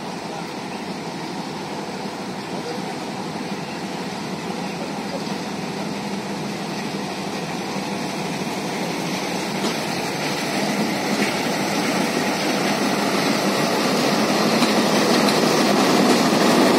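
Diesel locomotive engine running as a freight train approaches, growing steadily louder until the locomotive draws alongside.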